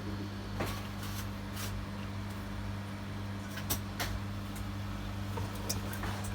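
Steady low hum with a handful of sharp clicks and knocks scattered through it, two of them close together a little before the middle.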